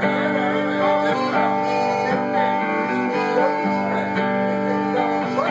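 Live country song's instrumental passage between sung lines: acoustic guitar strumming with sustained notes and some bending pitches.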